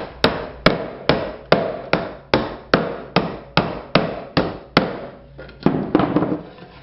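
Hammer driving nails into the wooden roof board of a nest box: a steady run of blows, about two and a half a second, then a few lighter taps near the end.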